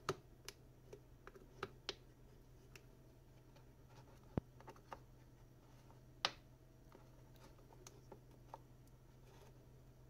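Scattered small plastic clicks and ticks as a plastic opening pick and a plastic card are worked along the seam between a smartphone's back cover and frame, prying the cover loose. The sharpest clicks come right at the start, near the middle and a little past halfway, over a faint steady hum.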